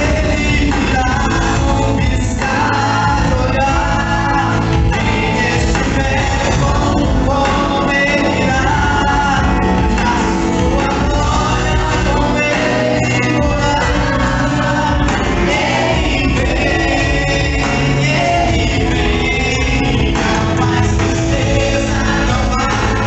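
Gospel music: voices singing over steady instrumental accompaniment, loud and continuous.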